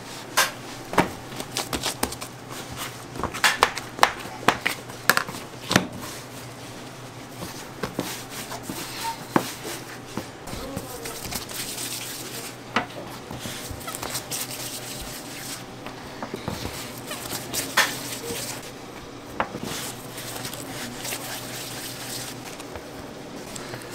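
Bakery kitchen work: a run of sharp clicks and knocks from utensils, pans and trays being handled, thick in the first six seconds and sparser after.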